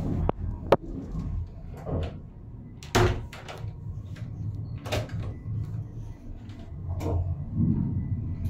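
Toilet cubicle door of an ICE 1 train, its handle and latch being worked, giving a few sharp clicks and knocks, the loudest about three seconds in, over the low steady rumble of the train running.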